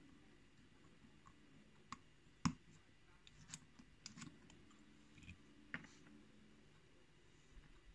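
Faint, scattered small clicks and taps of metal parts as a KIK lock cylinder and its tools are handled during disassembly, about seven in all, the loudest about two and a half seconds in.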